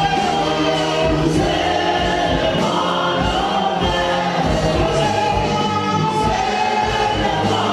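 Gospel music: a choir singing with band accompaniment and a steady beat.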